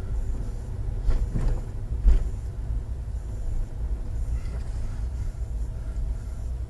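Low, steady rumble of a motorhome driving slowly, heard from inside the cab, with two knocks about one and two seconds in, the second louder.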